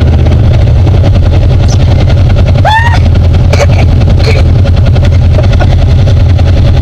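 Side-by-side UTV engine idling, a loud, steady low rumble. A short rising whoop cuts through about three seconds in.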